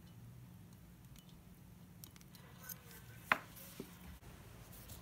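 Faint handling of metal parts at the screw hole of a hydraulic cylinder: a few light ticks, then one sharp metallic click about three seconds in and a fainter click half a second later, over a low steady hum.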